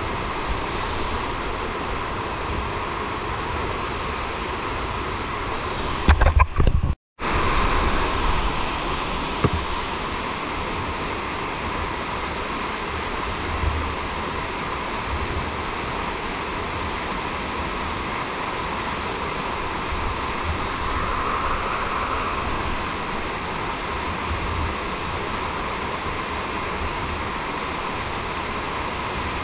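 Steady rush of a waterfall in a rocky canyon. About six seconds in there is a short loud burst of knocking, and the sound cuts out for a moment before the water noise returns.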